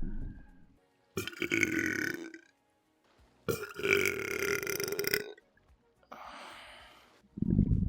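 Belches one after another: the end of one at the start, then two long rough belches of about a second and a half each, a softer hissing sound, and another low belch starting near the end.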